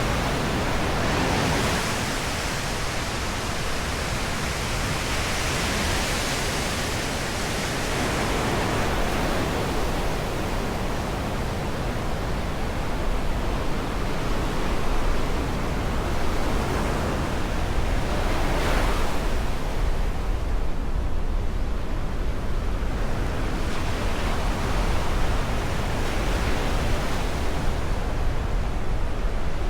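Black Sea surf: waves washing onto the shore, swelling and easing every few seconds, over a steady low rumble.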